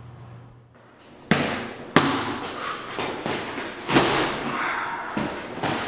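A few sharp, irregular thumps and bangs, starting about a second in, with the loudest hits about two and four seconds in, over a steady noisy background.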